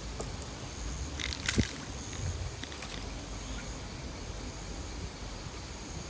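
A short splash and sharp knock about one and a half seconds in as a small fish (black acara) strikes and thrashes at the surface of shallow swamp water on a float rig, over wind rumble on the microphone and a high steady buzz that comes and goes.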